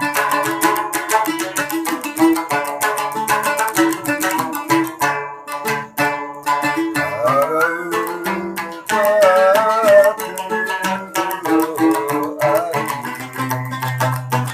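Large gambus, a Sasak plucked lute, played in quick plucked runs. From about halfway through, a higher melody with a wavering, sliding pitch runs over it for a few seconds.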